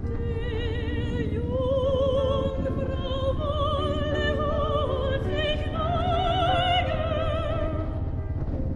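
Operatic singing from a music track: a single high voice with wide vibrato holding long notes that climb step by step, over a steady low rumble.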